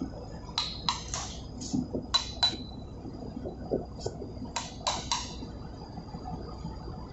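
Hammer blows on a brass drift, bending the tab of a steel locking plate up against a bolt head on a main engine starting air valve: sharp, ringing metal taps in clusters of two or three, about ten in all.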